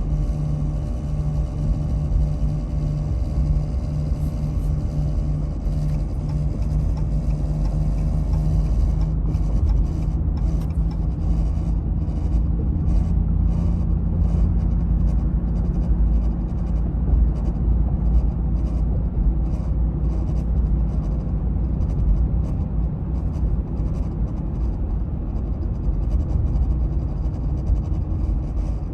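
Ram TRX pickup heard from inside the cab while driving: a steady low engine and road rumble. For the first several seconds a hum throbs in and out, then it settles into a steady drone.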